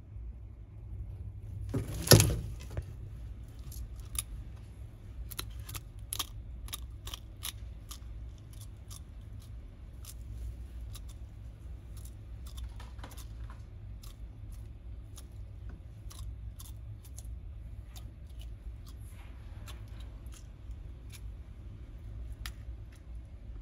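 Yellow-headed monitor (Varanus cumingi) crunching quail eggs: a loud crack of shell about two seconds in, then many sharp, irregular clicks of eggshell breaking in its jaws, over a steady low hum.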